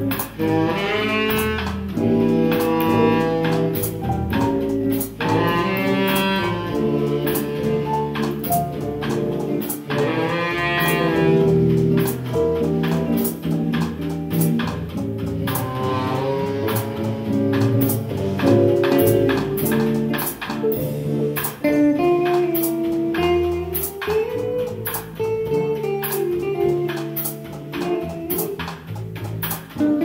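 Small jazz combo playing an instrumental passage: electric guitar and tenor saxophone lines over walking double bass, piano and drums, with cymbal strokes keeping a steady beat.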